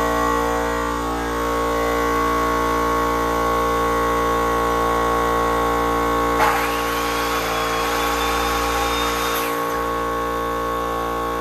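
Electric induction motor running steadily on a low-frequency inverter fed by a 24 V LiFePO4 battery bank: a loud, even hum, the motor having come up to speed without stalling. A hiss with a rising whistle joins it for about three seconds in the middle.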